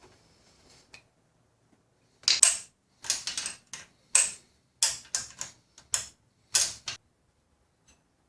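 Hand tool work on motorcycle ignition coil wiring: a run of about a dozen short, sharp mechanical clicks and rasps, coming in irregular clusters over a few seconds.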